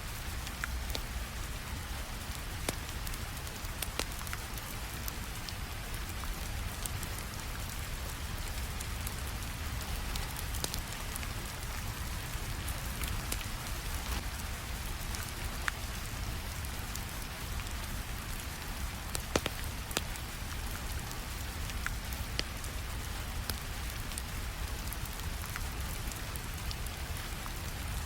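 Steady rain with sharp crackles and pops from a wood fire scattered through it, over a low rumble.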